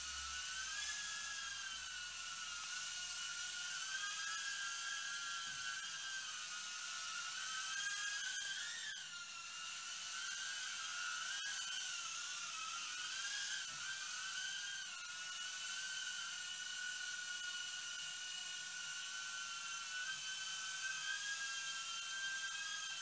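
FuryBee F36 mini quadcopter's four small motors and propellers whining high as it hovers and flies, the pitch wavering up and down as it is steered, with a brief rise about eight seconds in.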